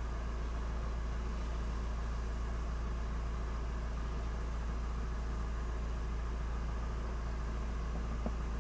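Car engine idling steadily, a low hum heard from inside the stationary car's cabin.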